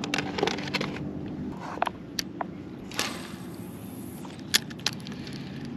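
Scattered clicks and knocks of rod, reel and tackle being handled over a low steady hum, with a brief hiss that starts sharply about three seconds in and fades out.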